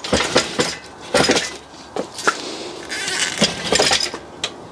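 Steel engine crane rolled across block paving with an engine hanging from it: the casters scraping over the paving and the crane rattling, in irregular clusters of rattles and knocks with a few sharp clicks.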